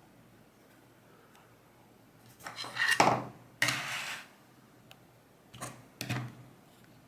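Metal clattering and clinking as a small lock and metal tools are handled and set down on a hard surface, in two bursts: a longer one around the middle and a short one near the end.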